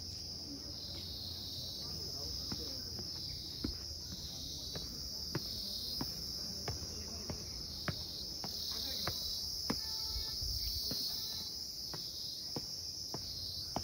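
Insects chirring in a steady high-pitched drone that swells and dips in a regular pulse. Footsteps tick about every half second to second on a paved path as the recordist walks.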